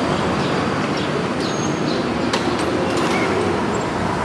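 Steady road traffic noise, loud and even, cutting off suddenly at the end.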